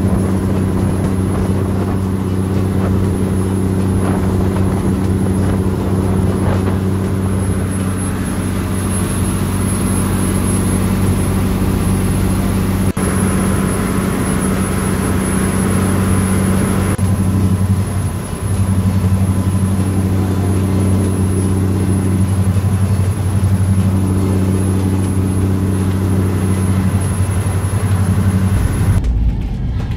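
A speedboat's engines running steadily at cruising speed, a constant low hum with the rush of water and wind over it, easing briefly about two-thirds of the way through.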